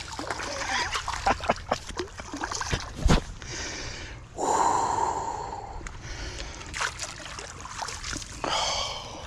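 A hooked smallmouth bass jumping and splashing at the surface during the fight, a string of sharp splashes over the first few seconds. Gasping, heavy breaths from the angler come over it, the loudest about four and a half seconds in.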